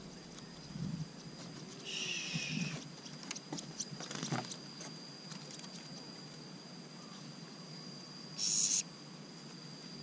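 Wire bird cage clicking and rattling lightly as a hand works at it and reaches inside. Under it a steady high-pitched tone, with two short harsh hissing bursts, one about two seconds in and a louder one near the end.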